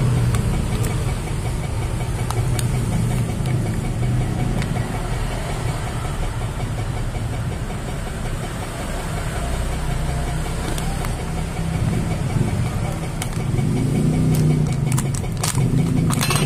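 Road traffic noise: vehicle engines on a busy road, a steady low rumble.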